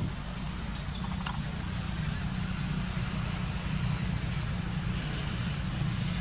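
Steady low vehicle rumble, with a few faint clicks about a second in and a brief high chirp near the end.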